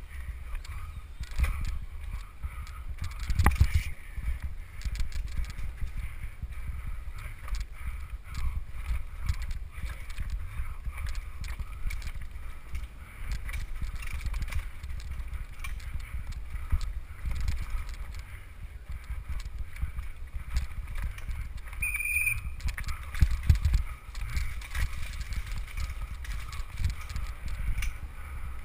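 Downhill mountain bike rattling and clattering over rough, rooty dirt trail at speed: constant irregular knocks and rattles from the bike, with heavy wind rumble on the helmet-mounted microphone. A short high squeak comes near the end.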